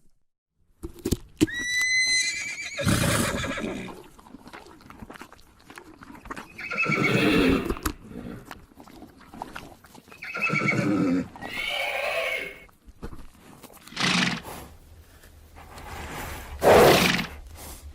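Horse neighing: a high, thin rising call starts about a second and a half in, followed by a series of louder neighs every few seconds. The loudest neigh comes near the end.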